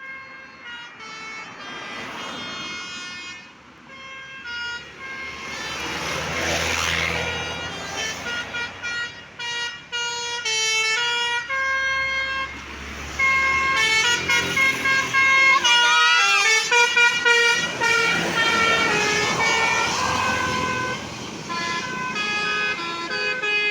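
Bus 'telolet' multi-tone horns (Basuri type) playing quick melodic sequences of stepped notes, one after another, with a brief siren-like gliding sweep about sixteen seconds in. Underneath is the rush of buses passing.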